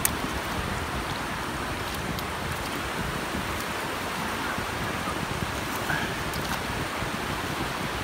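Steady wash of sea surf on a sandy beach, with wind buffeting the microphone and a few faint clicks.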